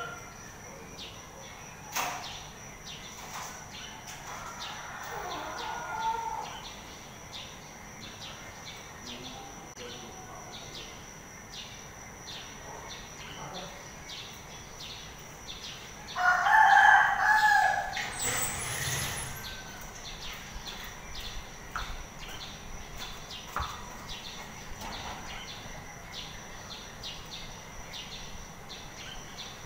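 A rooster crows once, loudly, about sixteen seconds in, followed by a brief rustling noise. Under it runs a steady high hum with faint regular ticking.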